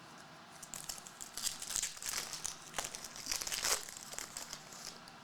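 Trading-card pack wrapper being crinkled and torn open: a run of irregular crackling and rustling starting about a second in, loudest near the end.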